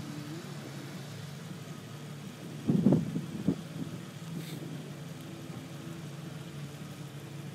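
A vehicle engine running steadily at low revs, with a couple of dull thumps about three seconds in.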